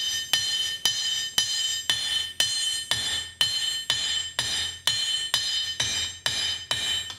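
Hand hammer striking red-hot wrought iron held in a swage set in the anvil, about two blows a second, each blow leaving the anvil ringing on a steady high tone until the next. The smith is hammering the back of a thumb-latch grasp so its front comes out smooth and crowned.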